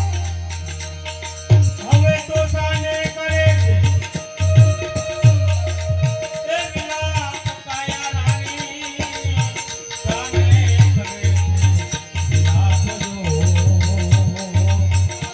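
Live bhajan music: a held melody line over a steady hand-drum beat, with a shaken rattle percussion.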